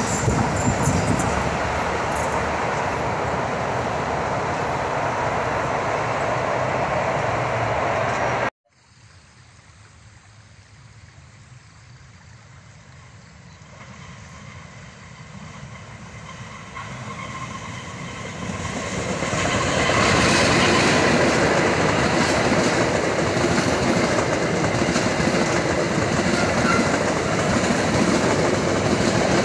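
Passenger train running past on the track, its wheels rumbling and clattering on the rails. The sound cuts off abruptly about eight seconds in; then another train is heard coming from afar, growing steadily louder until its coaches are passing close by.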